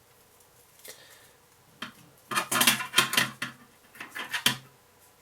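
Hands handling a small quadcopter frame while fitting its elastic battery strap: a run of clicks, scrapes and taps, densest about two to three and a half seconds in, with a few more taps about four seconds in.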